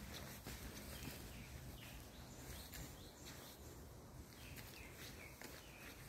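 Faint footsteps of someone walking on a forest path, with a few short bird chirps and a low rumble of wind or phone handling.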